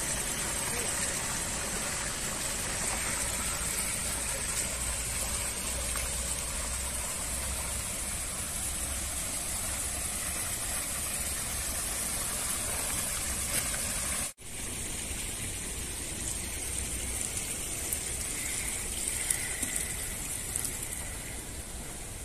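Steady splashing rush of a small spout of water falling into a garden pond, with a brief cutout about two thirds of the way through.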